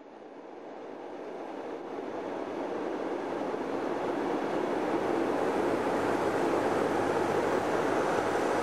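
A steady rushing noise with no pitch, fading in from silence and growing slowly louder.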